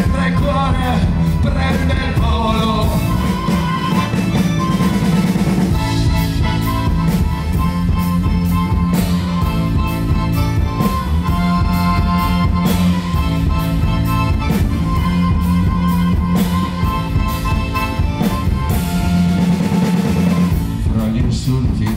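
Live folk-rock band playing a passage with no lyrics sung: piano accordion playing the melody over a steady drum-kit beat and electric bass.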